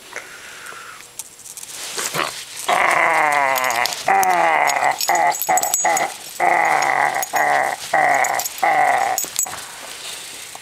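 Puppy play-growling: a loud, wavering growl in a run of short bouts broken by brief pauses, starting about three seconds in and stopping about nine seconds in.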